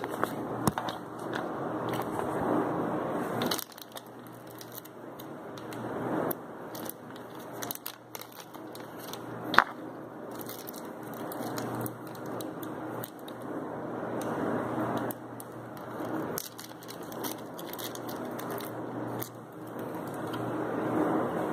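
Hands rummaging through the power supply's packaging for its screws: uneven rustling and crinkling, with one sharp click about ten seconds in.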